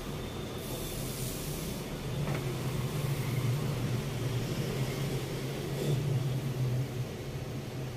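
Coconut milk boiling in a wide aluminium wok: a steady low rumbling hiss, with a brief burst of brighter hiss about a second in.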